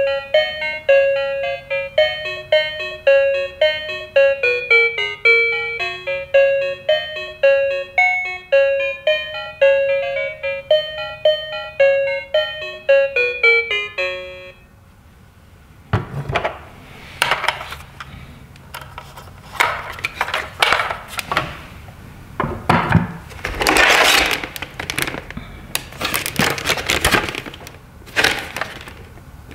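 Toy police car's little speaker playing a quick electronic tune of short notes, which stops about halfway through. After a brief pause comes the crackling and rattling of a stiff plastic blister pack being picked up and handled.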